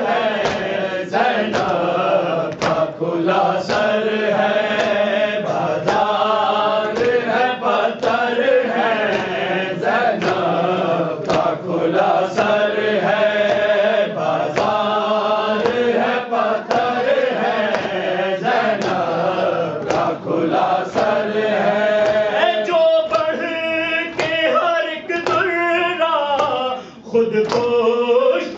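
Voices chanting a noha, an Urdu Shia lament, in a slow repeating melody, with a regular beat of sharp strikes about once a second underneath. The chanting drops away briefly a little before the end.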